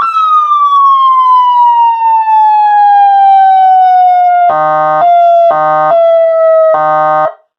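A 200-watt electronic police siren through a cone speaker, loud: a wail tone gliding slowly down in pitch, then three short buzzy horn blasts over it before it cuts off near the end. The horn comes from the switch labelled siren, as the control box's siren and horn switches are wired backwards.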